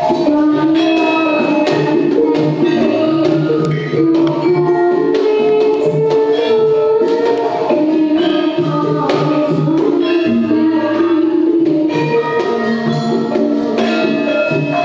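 Javanese gamelan ensemble played by children: metal-keyed saron and demung ringing out the melody over kendang drum strokes in a steady beat, with a girl's voice singing along through a microphone.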